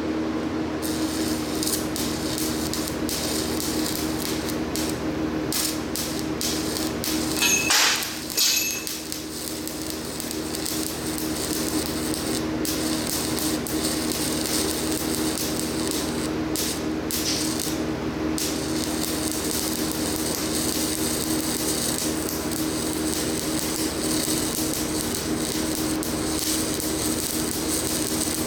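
Stick-welding arc crackling and hissing on a cast-iron casting, in stretches that break off and restrike, over a steady machine hum, with a short louder burst about eight seconds in.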